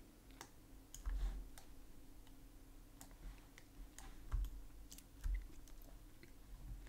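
Faint computer keyboard keys and mouse clicks, scattered and irregular, some with a dull low thud of the desk.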